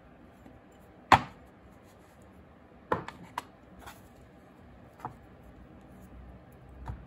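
A few sharp knocks and taps of objects being set down and handled on a plastic craft tray: one loud knock about a second in, a quick cluster of smaller taps around three seconds, and single lighter ones near five seconds and near the end.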